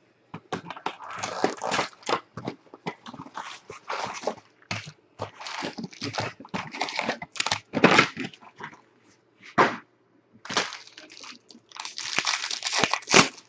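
Foil wrappers of 2016 Bowman Draft baseball card packs crinkling and rustling as the packs are handled, then torn open, a dense run of crackling rustles with a longer, louder tear near the end.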